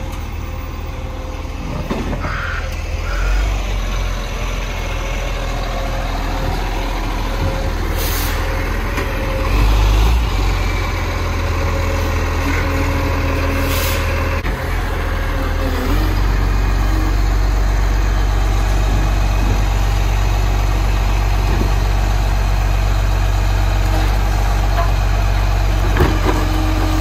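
Recycling garbage truck's engine running steadily, with two short hisses of air about 8 and 14 seconds in. About 16 seconds in the engine gets louder and stays there.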